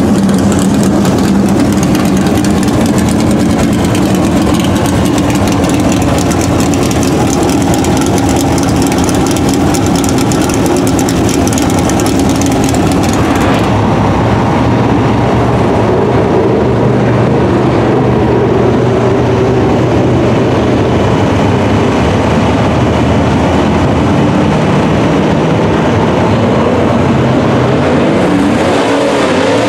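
Dirt late model race car V8 engines running loud and steady. About halfway through, the sound changes abruptly to cars lapping a dirt oval, with engine pitch rising and falling near the end as they pass.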